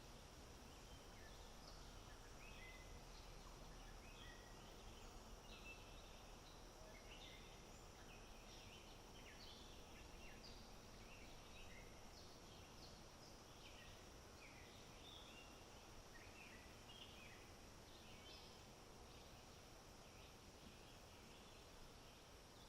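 Faint outdoor ambience: many short, high bird calls scattered throughout over a steady high-pitched hiss.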